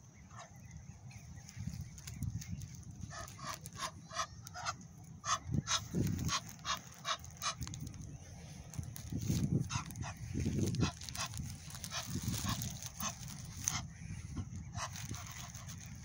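Egyptian geese calling in several bouts of short, harsh honks, about three a second.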